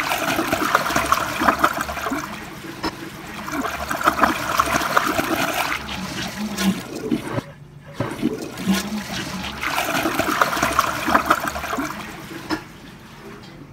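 Toilet flushing: water rushing and swirling round the bowl as it pulls a handful of plastic play balls down. About seven and a half seconds in there is a short break, then the rushing starts again and dies down to a quieter trickle of the bowl refilling near the end.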